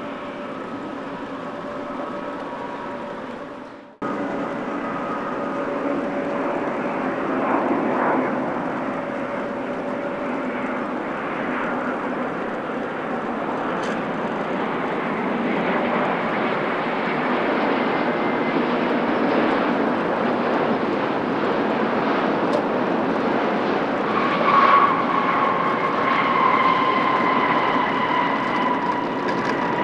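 Jet airliner engines running as a plane goes by, a steady noisy rumble that builds gradually. It breaks off abruptly about four seconds in and starts again. Near the end a whining engine tone comes in and slides slowly down in pitch.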